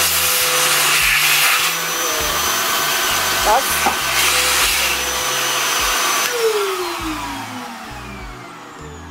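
VacMaster 12-gallon, 5 peak HP wet/dry shop vacuum running loud, a dense steady whir with a high whine. About six seconds in it is switched off and the motor winds down, its pitch falling as it slows.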